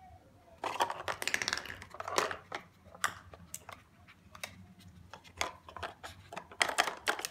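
A run of sharp, uneven plastic clicks and clatter from a red plastic dog puzzle toy as a Chihuahua noses and pushes at its orange knobs, with a dense flurry about a second in.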